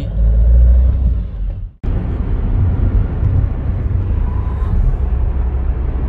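Car driving, heard from inside the cabin: a steady low rumble of road and engine noise. It cuts out for an instant about two seconds in, then carries on the same.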